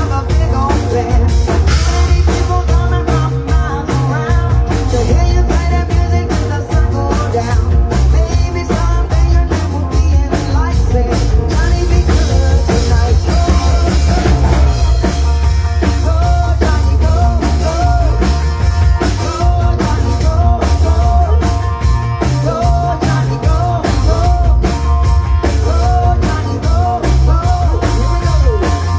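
A rock band playing: drum kit keeping a steady beat under a heavy bass line, with a singing voice or lead instrument carrying the tune.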